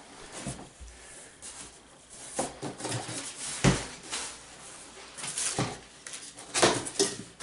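Cardboard box flaps and plastic wrapping rustling as packing is handled and pulled out of a shipping box, with scattered light knocks and one heavier thump a little past the middle.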